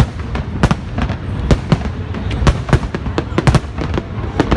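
Fireworks bursting: a rapid, irregular series of sharp bangs over a continuous low rumble.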